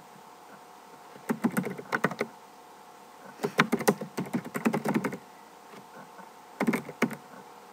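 Typing on a computer keyboard, keys clicking in three short spurts with pauses between.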